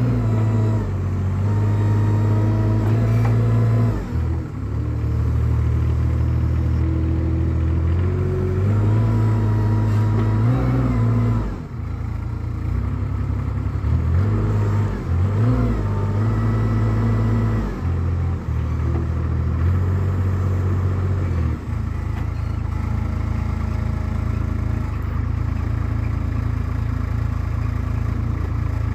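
GiANT compact articulated loader's engine running under load, its speed stepping up and down repeatedly as the stump-ripper arm is worked, then settling to a steady run for the last several seconds.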